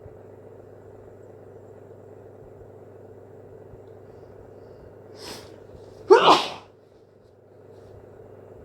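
A person's wet hay-fever sneeze: a short sharp in-breath about five seconds in, then a single loud sneeze a moment later, over a faint steady hum.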